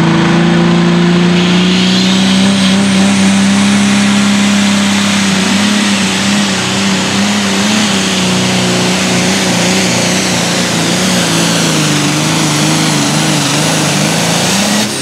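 Limited Pro Stock pulling tractor's turbocharged diesel engine at full power, dragging the weight sled, with a thin high whine above it. A few seconds in, the engine pitch begins to waver up and down as the load builds, and the sound drops right at the end.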